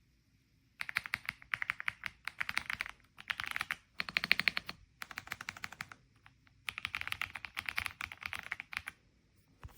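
Fast typing on an EPOMAKER x Aula F75 gasket-mount mechanical keyboard with Ice Vein switches: dense runs of key clacks in several bursts, with short pauses between them.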